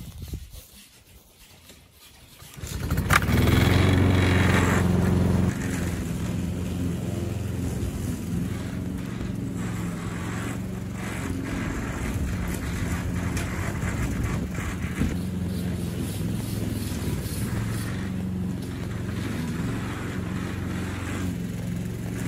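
Small petrol engine of a garden machine running steadily; it comes in about three seconds in, is loudest for the next couple of seconds, then settles to a slightly lower, even level.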